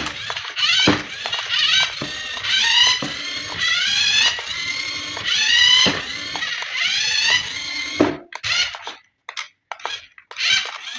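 Small electric motor of a toy RC car revving up again and again, a whine that rises in pitch each time, with occasional knocks and clicks from handling.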